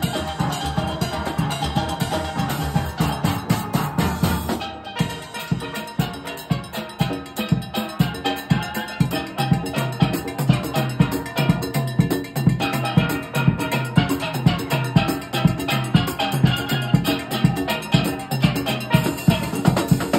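Steel orchestra playing live: steel pans struck with rubber-tipped mallets in a fast, rhythmic tune over a drum kit, with a brief drop in the music about five seconds in.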